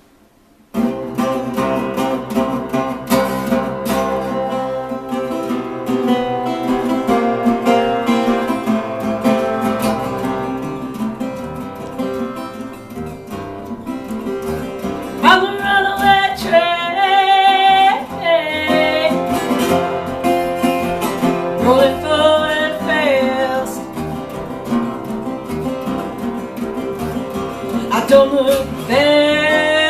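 Metal-bodied resonator guitar playing a blues intro, starting about a second in. From about halfway, a woman sings over it in several long, wavering phrases.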